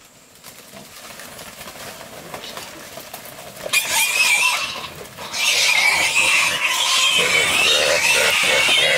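A young pig squealing loudly and shrilly as it is grabbed and held by hand, the distress cries of a restrained pig. The squealing starts a few seconds in, breaks off briefly, then runs on without pause.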